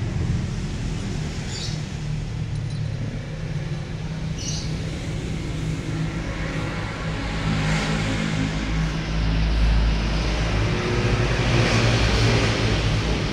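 A motor engine running steadily, with louder rumbling noise swelling around the middle and again near the end. There are two brief high chirps in the first few seconds.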